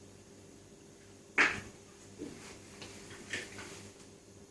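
A sharp knock about a second and a half in, then a few fainter clicks and taps: mini-bike brake parts and tools being handled while the front brake is fitted.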